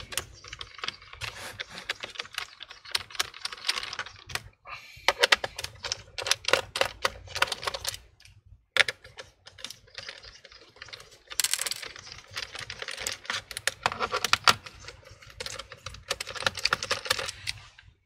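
Runs of rapid small clicks and taps from a precision Phillips screwdriver working the screws out of a laptop's plastic bottom cover, with brief pauses between screws.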